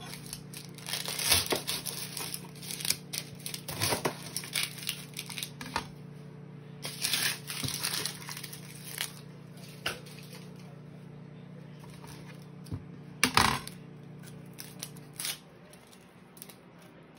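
Kitchen handling noises: scattered clinks and knocks of a chef's knife against a metal sheet pan, and the rustle and crackle of a red onion's papery outer skin being handled, over a steady low hum.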